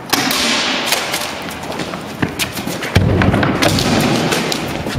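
Matrix Tactical Shotgun airsoft replica being fired and worked, a string of sharp clicks and snaps, with thumps and a low rumble from about three seconds in.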